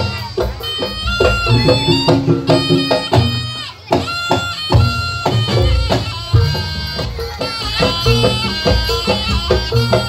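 Live jaranan senterewe music: a reedy, shrill terompet melody with sliding notes over steady drumming, with a short drop in loudness a little before the middle.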